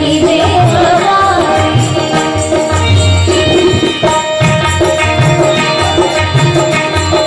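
Live Indian folk-devotional music: a voice singing over tabla-style hand drums that keep a steady beat, with held melodic tones.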